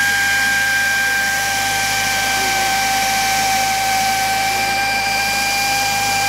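Pneumatic drill running at full speed with a steady, high-pitched whine.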